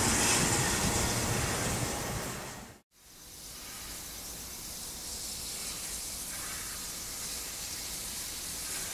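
A passing train's rumble fading away over about three seconds until it cuts off. Then a steady hiss of steam from Victorian Railways R-class steam locomotive R766.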